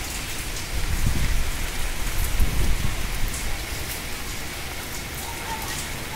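Steady heavy rain from a passing cyclone, pattering on surfaces. A low rumble swells about a second in and eases off after a couple of seconds.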